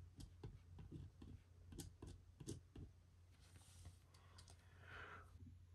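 Faint pen writing on paper: a run of light clicks and scratches through the first three seconds, then a couple of soft brushing sounds later on.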